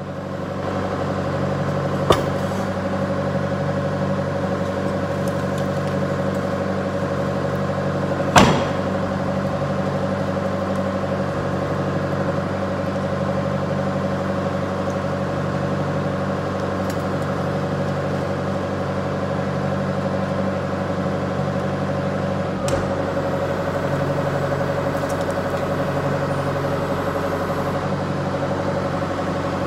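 John Deere 120 excavator's diesel engine running steadily while the stick is lowered onto a shop-built adapter for a test fit. There are a few sharp knocks, the loudest about eight seconds in.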